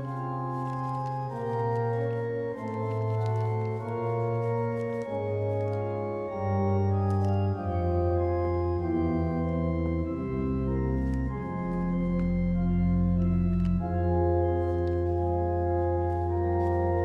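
Background score music: slow, held organ-like chords over a bass line that steps from note to note, growing a little fuller about six seconds in.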